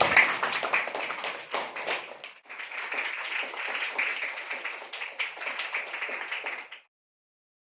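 A group of students clapping together, with a short lull about two and a half seconds in; the clapping cuts off abruptly about a second before the end.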